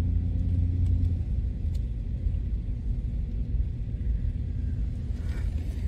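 Low, steady rumble of a vehicle driving slowly, its engine and tyres heard from inside the cab. A faint hum sits over it for the first second or so.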